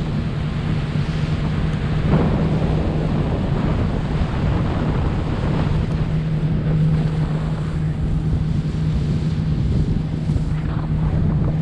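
Fishing boat's engine running at a steady speed across open water, with wind buffeting the microphone and water rushing past.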